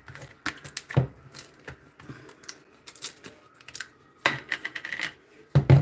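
Wooden spoon knocking and scraping against a stainless steel mixing bowl while folding a thick ricotta and egg mixture: irregular clicks and scrapes, with a longer scrape a little past halfway and a louder knock near the end.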